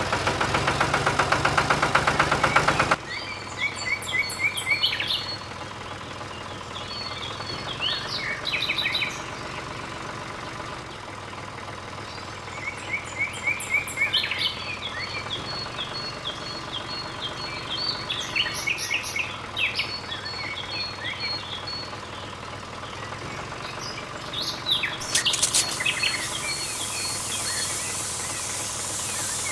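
Songbirds chirping and calling in short repeated phrases over a faint steady low hum. In the first three seconds a loud, dense rhythmic sound plays, then cuts off suddenly.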